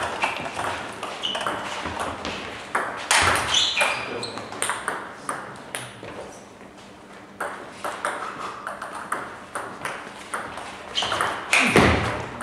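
Celluloid-type table tennis balls clicking off tables and bats: many quick, irregular pocks, with a few louder hits about three seconds in and near the end.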